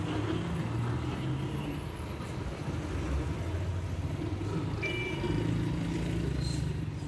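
City street traffic: car and motorcycle engines running as vehicles pass close by, with a steady low rumble. A brief high-pitched tone sounds about five seconds in.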